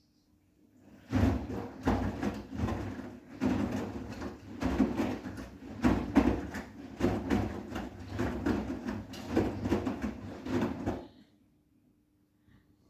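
Bosch WGA252Z0TR front-loading washing machine drum turning a wet load of towels and bathrobes, with repeated thuds and swishes for about ten seconds before it stops. A faint steady hum runs underneath.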